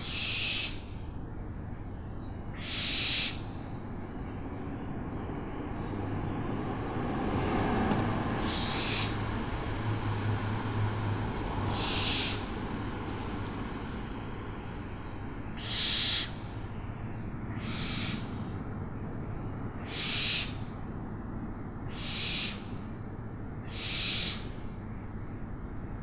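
Owl giving short, harsh hissing screeches, about nine of them a few seconds apart, over a steady background hiss.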